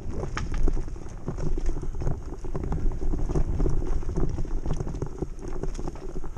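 Mountain bike riding fast down a dirt trail: tyres rolling on packed dirt while the bike rattles and clatters over bumps in a dense, irregular run of knocks, over a steady low rumble of wind on the camera's microphone.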